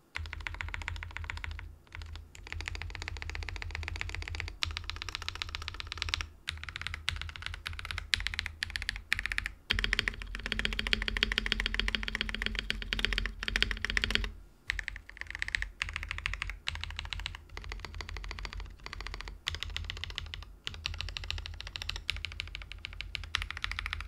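Akko PC75B mechanical keyboard with factory-lubed Akko CS Wine Red switches, typed on at speed in stock form: a dense run of keystrokes with a few short pauses. The sound is very muted, with no spring ping or case resonance.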